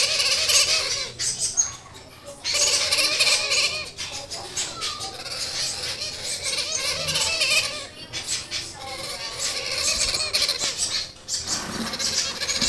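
Blue-headed parrot (Pionus menstruus) chicks about a month old giving harsh, repeated begging calls, several birds calling over one another, with brief lulls about two seconds in and near the end.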